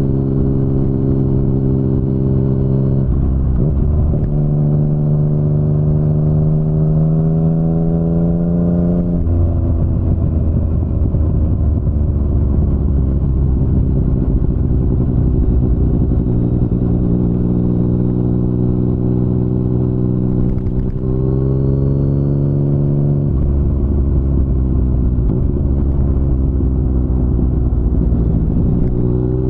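2019 Yamaha MT-09's three-cylinder engine through an Akrapovic full-system exhaust, under way. The engine note climbs steadily for several seconds under acceleration, drops at a gear change, holds steady while cruising, then climbs and drops again near the end.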